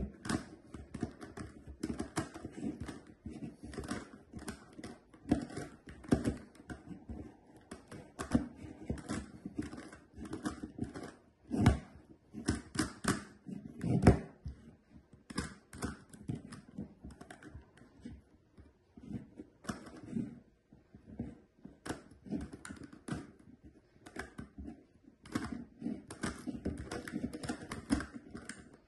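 GAN Megaminx, a twelve-sided plastic twisty puzzle, being turned rapidly with one hand: a continuous irregular clicking and clacking of its layers, with a couple of louder knocks near the middle.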